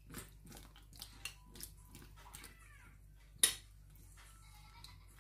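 Metal spoon stirring and tossing sliced eggplant in a glass bowl: soft scrapes and light clinks, with one sharp clink of the spoon against the glass about three and a half seconds in.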